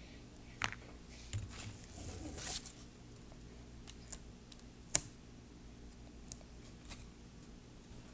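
Small sharp clicks and taps from handling a chalk pen and a flower-shaped chalkboard, with a short rustle about two seconds in; the loudest click comes about five seconds in.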